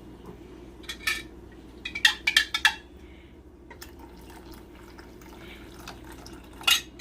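A utensil clinking against a pot as the gravy, thickened with a cornstarch slurry, is stirred. A couple of clinks come about a second in, a quick run of them around two seconds in, and one more near the end, over a steady low hum.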